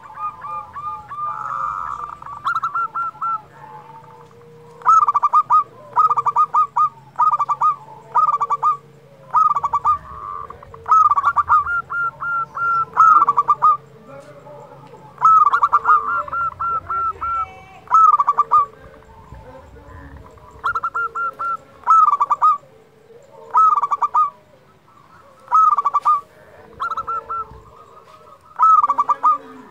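Zebra dove (perkutut) singing over and over: short clusters of quick, ringing cooing notes, one burst every second or two.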